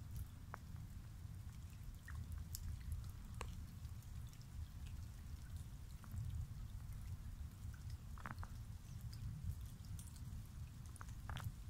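Light rain: scattered, irregular drops pattering and dripping onto lake water, with a few louder drips and a steady low rumble underneath.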